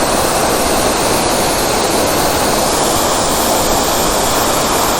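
Waterfall pouring in full flow, a loud, steady rush of falling water. The falls are carrying much more water than usual after two weeks of rain.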